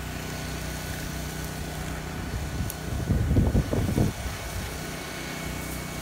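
Small engine running steadily, with a few loud, low rumbling bumps between about two and a half and four seconds in.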